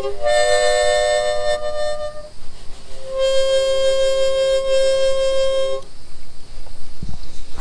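Harmonica played in chords: a short phrase of changing notes over the first two seconds, then one long held chord from about three to six seconds in.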